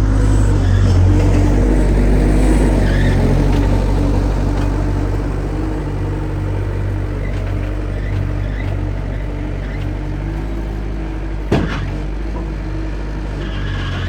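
Bobcat 763 skid steer's diesel engine running steadily, a little louder for the first few seconds. A single sharp knock comes near the end.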